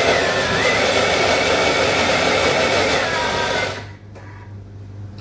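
Electric kitchen blender running steadily, chopping pesto ingredients (basil, oil, hemp seeds, pine nuts), then switched off a little under four seconds in.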